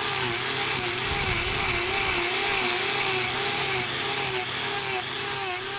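Angle grinder cutting into the overgrown horn of a cow's claw during hoof trimming. Its motor whine rises and falls in pitch nearly twice a second as the disc is swept across the hoof under load.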